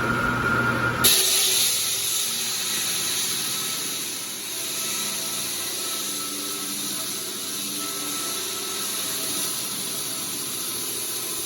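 Concrete saw with a diamond blade cutting through a thick concrete floor slab: a steady, hissing grind. The sound changes abruptly about a second in, turning to the brighter, hissier cutting noise.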